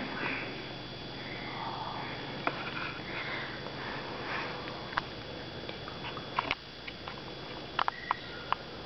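A puppy sniffing in short, repeated puffs, with a few sharp clicks and taps in the second half.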